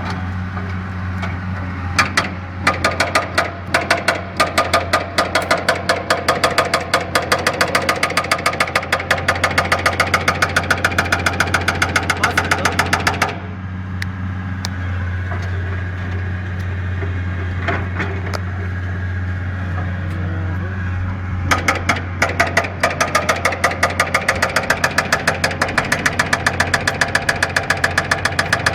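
A machine runs with a steady low hum and a rapid, even knocking of about five strokes a second. The knocking stops about 13 seconds in and starts again about 8 seconds later while the hum carries on.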